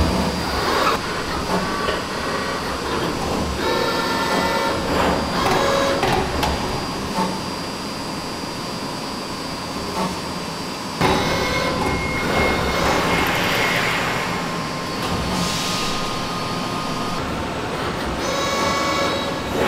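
Automated sheet-metal panel bender and its suction-cup manipulator working a steel sheet: steady machine noise with short motor whines, stretches of air hiss and a sharp knock about eleven seconds in.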